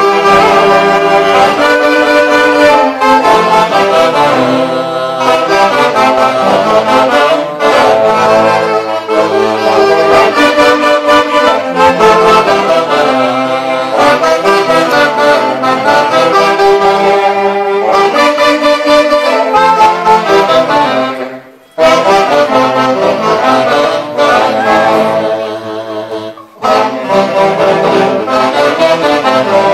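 Live band of saxophones playing a dance tune in harmony, breaking off briefly about two-thirds of the way through and again a few seconds later.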